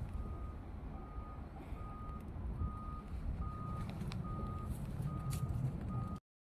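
Vehicle reversing alarm beeping: one steady tone repeating evenly, a little more than once a second, over the low rumble of wind on the microphone. Everything cuts off suddenly near the end.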